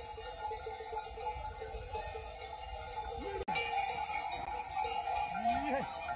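Livestock bells jingling and clanking steadily, with an instant's dropout about halfway through.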